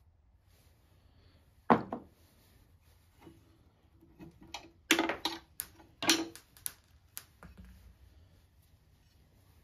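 Cast-iron seat-hinge parts of a New Victor desk knocking and clinking against each other as they are worked apart by hand: one sharp knock about two seconds in, then a quick run of clanks from about five to seven seconds in.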